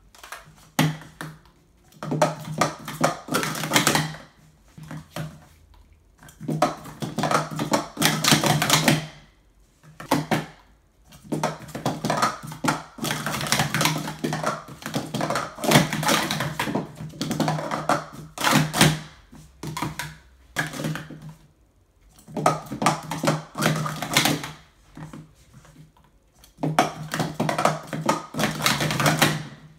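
Plastic Speed Stacks sport-stacking cups clattering as they are rapidly stacked up and down on a stacking mat: runs of quick clacks several seconds long with short breaks between.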